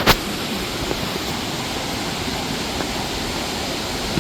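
Steady rushing of a waterfall, with one sharp knock just after the start.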